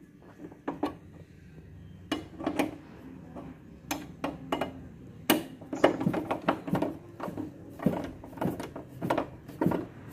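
A screwdriver clinking and scraping on the metal pins of a TV wall bracket: a run of irregular sharp clicks and taps, sparse at first and busier from about four seconds in.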